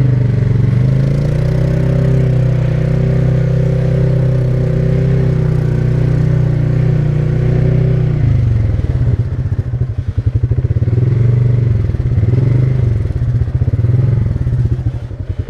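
ATV engine running at a steady throttle, then from about eight seconds in the revs rise and fall repeatedly as the throttle is worked on and off.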